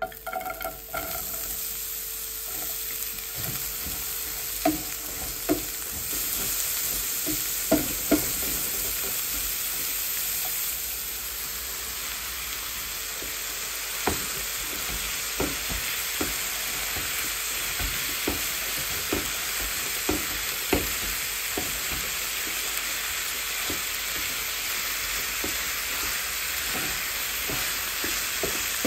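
Ground beef and chopped onion sizzling in hot oil in a nonstick frying pan, starting abruptly, while a wooden spatula stirs and breaks up the meat, knocking and scraping against the pan at irregular moments.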